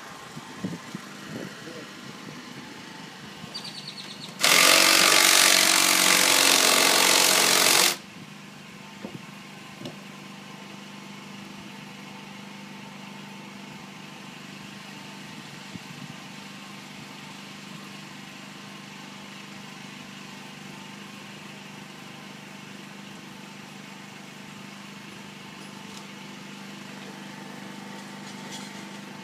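A cordless drill runs in one loud burst of about three and a half seconds, about four seconds in. The rest is a low steady hum with a few small knocks.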